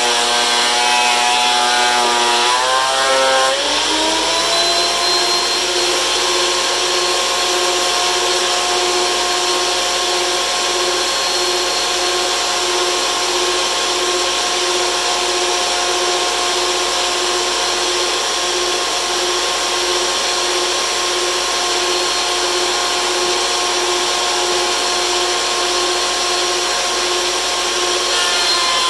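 DeWalt benchtop thickness planer running loud. At first its pitch is held down under the load of the cut, then it rises about three seconds in as the board clears the cutterhead. After that the motor runs free with a steady high whine, and its pitch starts to drop again at the very end as it takes load.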